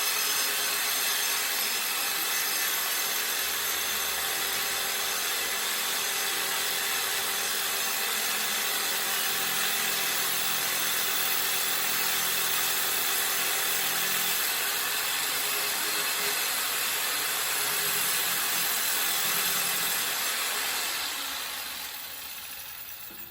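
Jigsaw fitted with a metal-cutting blade sawing through a metal mounting bracket, running steadily, then winding down and stopping near the end. The cut is going slowly.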